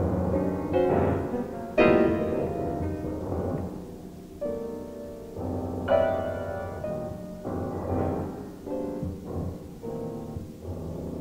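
Solo grand piano playing a contemporary piece: struck chords that ring and die away over a sustained low bass, with the loudest strikes about two seconds in and again about six seconds in.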